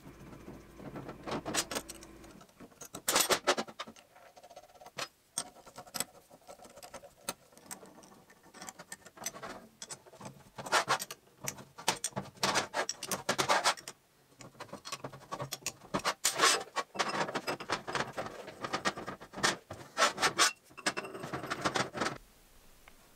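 Steel parts of a thread-die holder handled and assembled on a steel workbench: irregular clinks, rattles and scrapes of metal on metal as set screws are turned in with a hex key and the die and handles are fitted. The handling stops about a second before the end.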